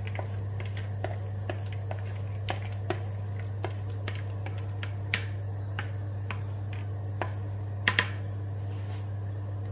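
Scattered light clicks and taps as a wooden spoon scrapes washed raw peanuts out of a plastic colander into a pan of coconut milk, over a steady low hum.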